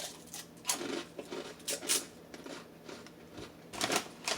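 A crisp fortune cookie being cracked and crunched in the mouth close to the microphone, a few short sharp crunches between quieter chewing.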